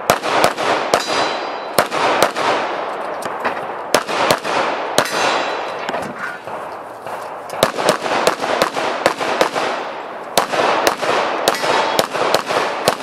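Rapid handgun fire in quick pairs and strings, with a short lull about midway. Some shots are followed by a brief metallic ring from steel targets being hit.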